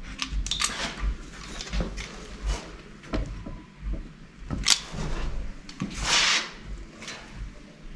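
Scattered sharp clicks and clunks of Tiger Seal adhesive being applied to a plastic side skirt, with a short hissy rasp about six seconds in.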